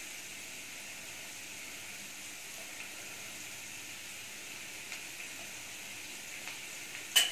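Shredded cabbage, carrot and capsicum sautéing in hot oil in a kadai, a steady soft sizzling hiss. A single sharp click near the end.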